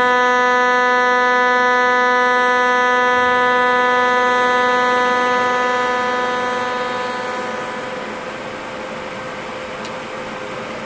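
Weiro SuperTIG 315EX inverter TIG welder's arc in high-frequency pulse mode, giving a loud, steady pitched hum. The hum fades out about seven seconds in as the automatic downslope ramps the current off, leaving a steady rushing noise.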